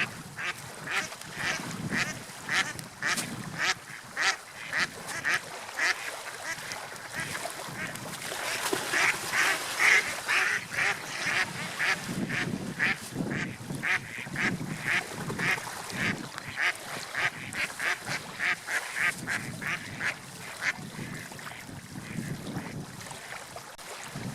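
Waterfowl calling in a long run of short, repeated calls, about two or three a second, over a steady rush of wind and water.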